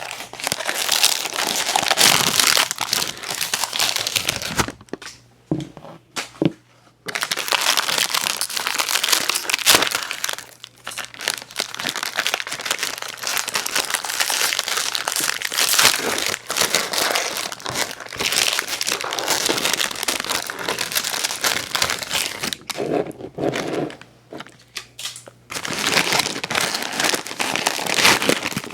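Ice cream sandwich packaging being handled and opened: dense, loud crinkling and crackling of wrapper material with some tearing, broken by two short pauses.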